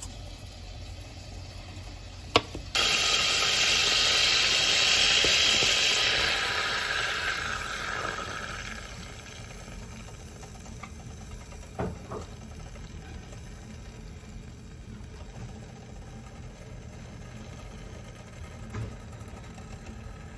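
Flour-coated chicken frying in hot oil: after a click, a loud sizzle starts suddenly about three seconds in and gradually dies down over the next several seconds, over a low steady hum.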